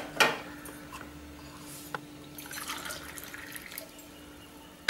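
A sharp clink of a kitchen vessel just after the start, then faint trickling and dripping of warm water.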